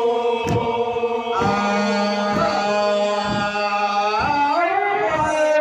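A group of men singing a traditional Manggarai chant in long held notes, the pitch sliding up about four seconds in, over low beats at roughly two a second.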